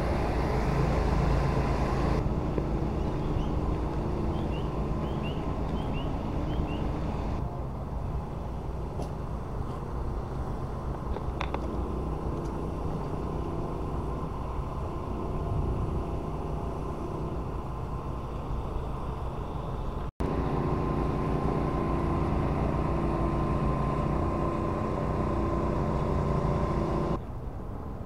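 Petrol engine of a trailer-mounted pressure washer running steadily, a constant drone with a thin whine.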